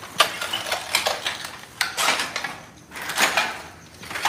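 Footsteps and scuffing on a hard floor, with irregular clinks and knocks.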